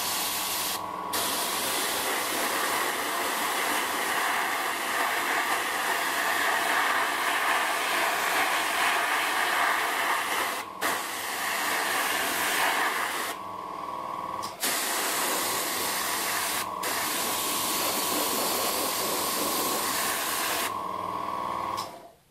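Airbrush spraying thinned acrylic paint in a steady hiss, over a steady hum. The spray stops briefly several times, longest for about a second past the middle.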